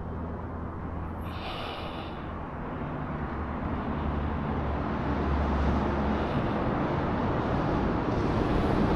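Steady low outdoor rumble and hiss, slowly growing louder, with a short higher hiss about a second and a half in.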